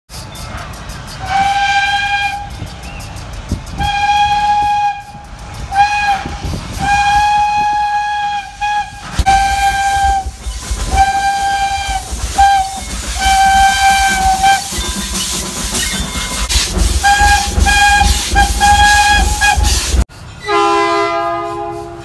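Single-note Baldwin teapot steam whistle on a small steam locomotive, sounding a string of short and long blasts over steam hiss and the low rumble of the moving engine. About two seconds before the end, a cut brings in a deeper train horn playing a chord of several notes.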